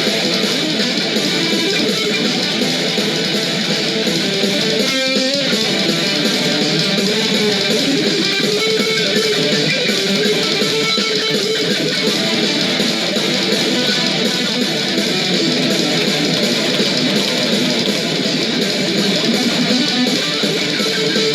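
Heavy metal instrumental played on electric guitar, dense and steady, with a brief break and pitch slide about five seconds in.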